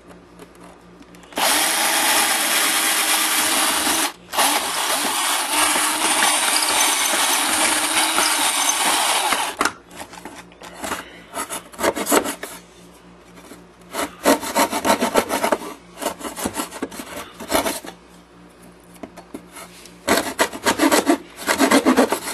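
Electric drill boring into the scenery base, running steadily for about eight seconds with a brief stop about three seconds in. After it stops, a hand-held saw blade scrapes in the hole in short, irregular strokes, smoothing and enlarging it.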